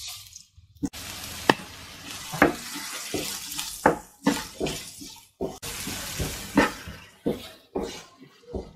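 Chopped red onions sizzling in oil in a non-stick pan as they soften with salt, while a wooden spatula stirs them, knocking and scraping against the pan again and again.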